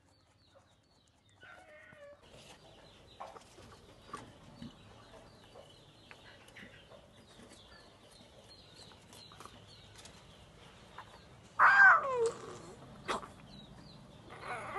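Chickens clucking, with faint high chirps throughout and a loud call sliding down in pitch late on, followed by a shorter call about a second later.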